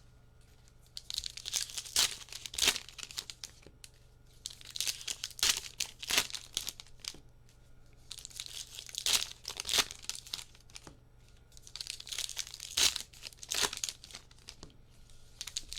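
Trading card pack wrappers crinkling and tearing as packs are ripped open and handled, in about four bursts a few seconds apart with sharp crackling snaps.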